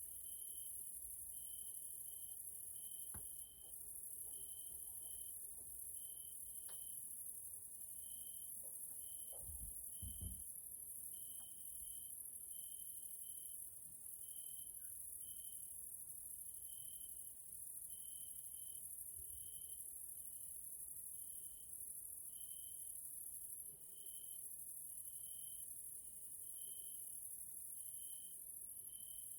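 Evening chorus of grasshoppers stridulating: a dense, steady high-pitched buzz, with a short chirp repeating regularly about three times every two seconds. A brief low rumble comes about ten seconds in.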